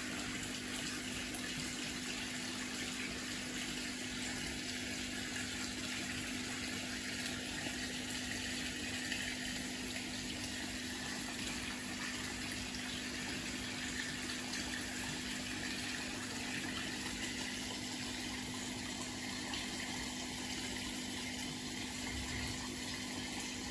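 Water running steadily into a fish tank, an even rushing with a steady low hum underneath.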